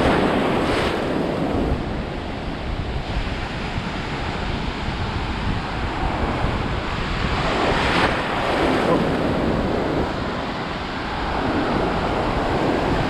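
Atlantic Ocean surf: waves breaking and washing in continuously, swelling louder at the start, about eight seconds in and again near the end, with wind buffeting the microphone.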